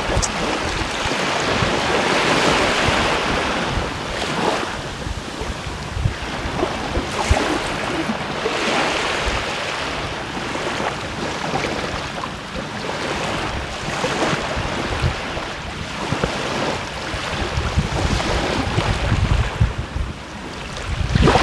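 Small waves washing onto a sandy shore, the surf swelling and fading every few seconds, with wind buffeting the microphone.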